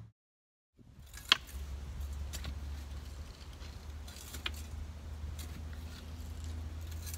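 A steady low hum with a few light, sharp metallic clinks scattered through it, the sharpest about a second in; it begins after a brief moment of dead silence at the very start.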